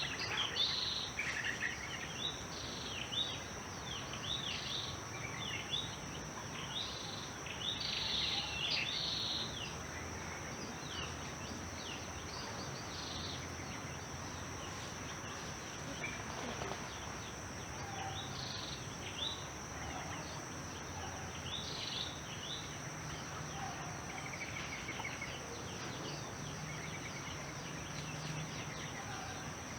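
Outdoor nature ambience: several birds chirping, busiest in the first ten seconds and sparser after, over a steady high insect drone and a faint low rumble.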